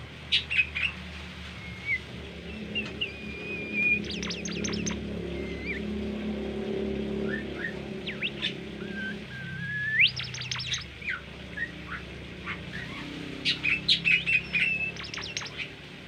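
A caged bimoli songbird singing in several bursts. Short whistled notes alternate with quick runs of sharp chirps, loudest near the start, midway and near the end.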